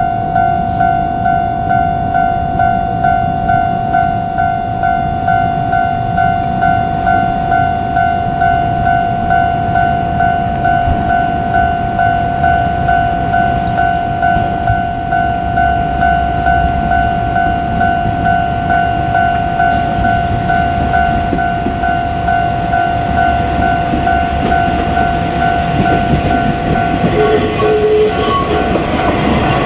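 Japanese railway level-crossing alarm ringing, a steady electronic tone repeating about one and a half times a second, over the low rumble of a train. The alarm stops a couple of seconds before the end.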